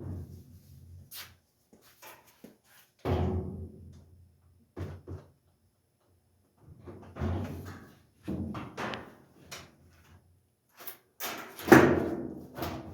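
Knocks and thuds of a Whirlpool washer's sheet-metal cabinet as it is pushed and knocked into place, several separate hits with short ringing, the loudest near the end.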